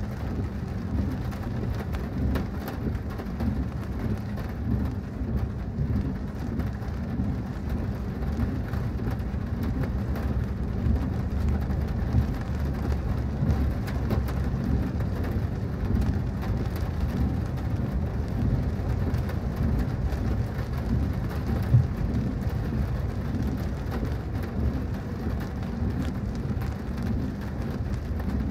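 Heavy rain falling on a moving car, with a steady low rumble underneath. A single sharp tap stands out about three quarters of the way through.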